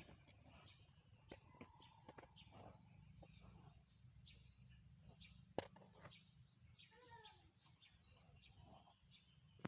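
Faint bird chirps in the background, a run of short high calls and a few falling notes, with one sharp click about halfway through.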